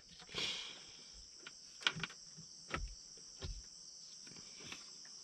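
Crickets chirping in a steady high drone, with a few faint knocks about two, three and three and a half seconds in.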